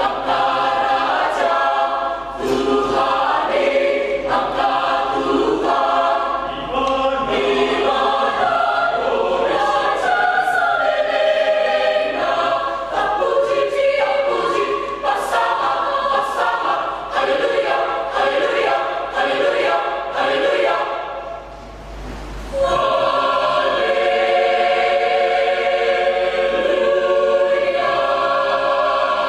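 Church choir singing in several parts, with a short break in the sound about three-quarters of the way through before the voices come back on held chords.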